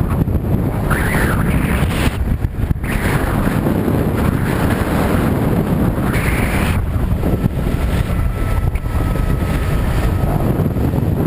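Strong wind buffeting an action camera's microphone aboard a moving motorboat, over the rush and splash of water against the hull, with a faint steady whine in the second half.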